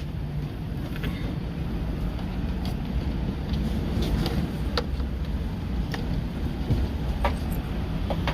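Steady low vehicle rumble, with a few faint clicks scattered through it.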